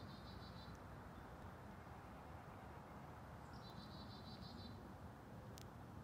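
A small songbird's rapid, high trill, about a second long: one ends just after the start and another comes about three and a half seconds in. Under it runs a faint, steady low rumble, with a faint click near the end.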